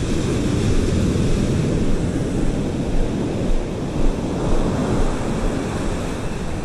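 Ocean surf breaking and washing up the beach, with wind buffeting the microphone as a low rumble.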